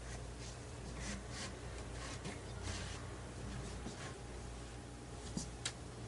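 Faint scattered clicks and rubbing of small metal brackets and screws being handled on a wooden table, over a steady low hum.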